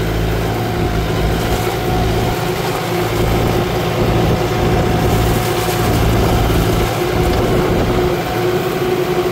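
Kubota tractor's diesel engine running steadily under load while pulling a plough, with a steady whine above the engine drone.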